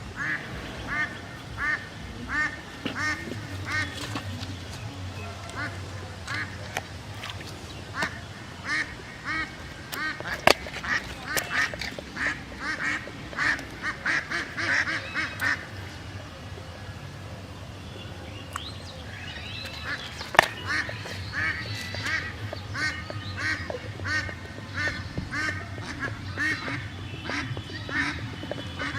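Animal calls repeated in quick runs, a few short pitched calls a second, with two sharp knocks about a third and two thirds of the way through.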